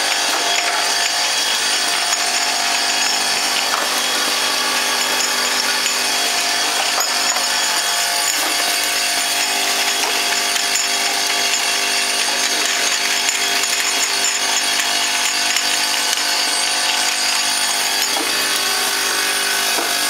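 Automatic bottle filling and capping machine running: its conveyor and drive motors make a steady mechanical noise with several held tones over it.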